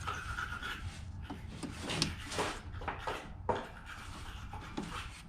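Irregular scraping and light clicks of a wrench and hands working a bolt back in on a lawn mower.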